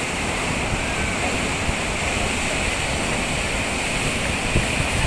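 Sea waves washing in a steady, continuous roar of surf.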